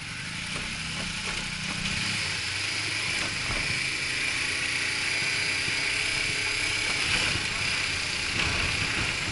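Motorcycle engine running on the move, with wind rushing over the microphone. The noise builds over the first two seconds and then holds steady.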